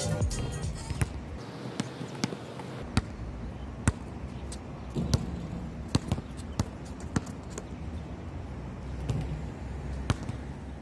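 Basketball bouncing on a hard outdoor court: single sharp bounces, irregularly spaced about a second apart, as the ball is dribbled and left to bounce.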